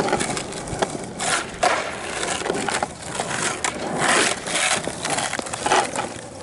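Skateboard wheels rolling over rough asphalt, a gritty rumble broken by repeated scrapes and knocks of the board.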